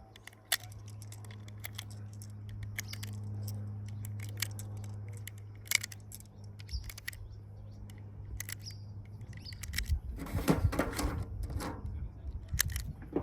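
Scattered light clicks and handling noises over a low steady hum that stops about eight seconds in; indistinct voices come in near the end.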